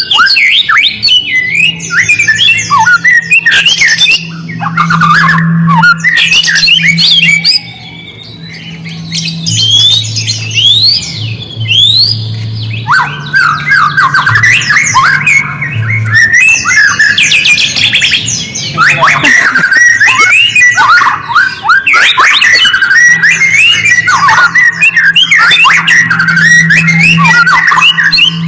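White-rumped shama (murai batu) singing loudly and continuously, a fast, varied run of sliding whistles and chattering notes with only brief breaks, over a low steady hum.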